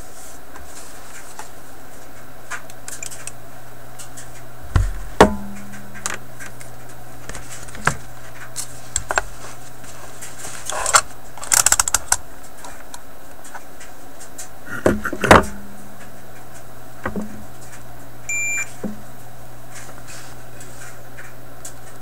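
Knocks and clatter of tools and multimeter test leads being picked up and set down on a workbench, over a steady low hum. A short high beep sounds about three-quarters of the way through, typical of a digital multimeter being switched on.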